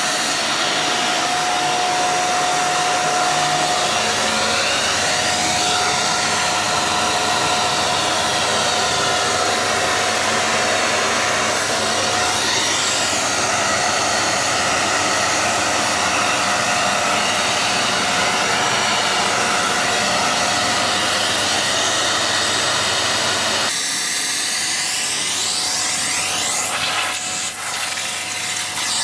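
Hoover Xarion bagless cylinder vacuum cleaner running steadily during a cleaning test: a motor whine with airflow hiss that slowly rises and falls in pitch. About 24 s in the tone changes, with less of the deeper sound.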